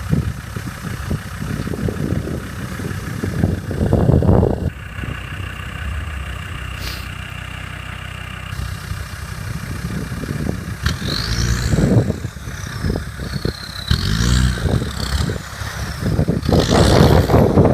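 Off-road 4x4's diesel engine running, revving up in several surges as the vehicle is driven.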